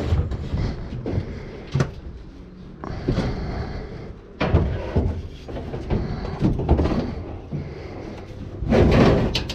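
Scrap metal parts from dismantled air-conditioner units being handled and packed into a load, with irregular clanks, knocks and thumps; the loudest knocks come about four and a half seconds in, and again near the end.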